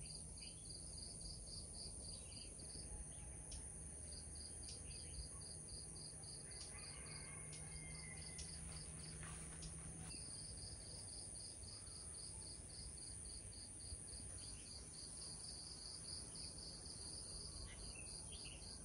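Insects chirping in an even, rapid pulse, about five a second, over a steady high-pitched drone; faint.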